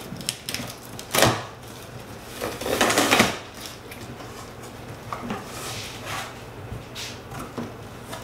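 Packing tape on a cardboard box being slit and torn open, then the cardboard flaps pulled open: a sharp rip about a second in, a longer, louder tearing sound around three seconds in, then lighter cardboard scrapes and rustles.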